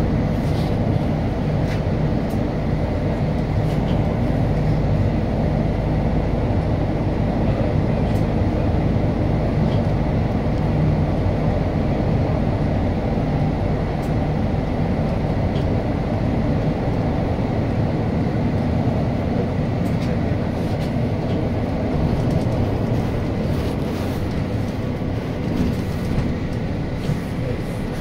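Steady engine and road noise heard inside a city bus driving at speed, with a few faint clicks from the cabin.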